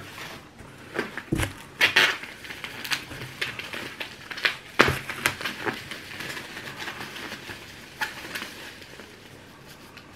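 Rummaging in a cardboard shipping box of glass hot sauce bottles: irregular rustling and crinkling of packing material, with scattered sharper knocks and clinks, a few louder ones in the first half.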